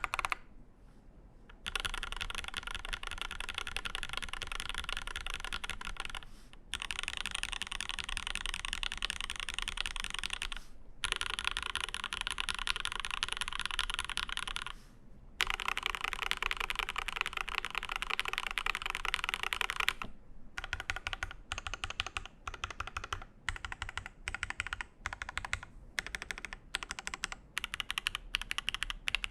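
Space65 CV mechanical keyboard with lubed Alpaca linear switches, a carbon-fibre plate and GMK keycaps, typed on fast in four long bursts with short pauses between them. About two-thirds of the way in, it switches to separate key presses a fraction of a second apart.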